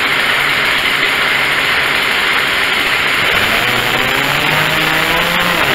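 Poulan homeowner chainsaw's two-stroke engine running steadily and loudly while its carburetor is being tuned.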